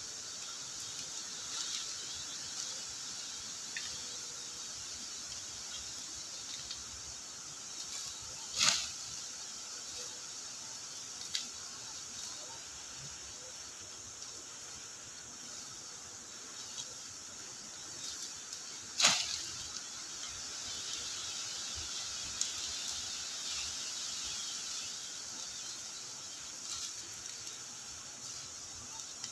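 Steady high-pitched chirring of insects in a tropical field, with a few small clicks and rustles and two loud, brief sharp swishes about nine and nineteen seconds in.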